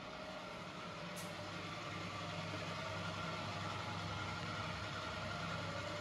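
A steady low mechanical hum with a faint wavering whine above it, swelling slightly through the middle.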